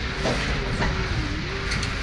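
Heavy machinery running with a steady rumble and an engine note that dips briefly and recovers about a second in, with a few sharp knocks.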